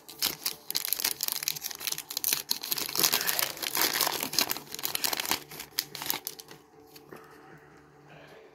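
Foil wrapper of a Chronicles basketball card hanger pack crinkling by hand as it is opened. It is a dense run of crackling that dies down about six and a half seconds in, leaving only faint handling of the cards.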